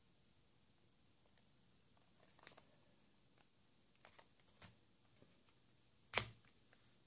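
Near silence broken by a few faint clicks of infrared remote-control buttons being pressed, with one sharper, louder click about six seconds in.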